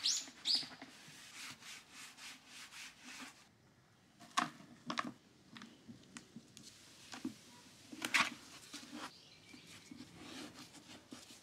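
Gloved hands rubbing and rustling inside a plastic bucket: wiping its inside, scattering rice bran into it, then packing in dried daikon radishes for takuan. It comes as a series of scrapes and rustles, with sharper strokes a few times.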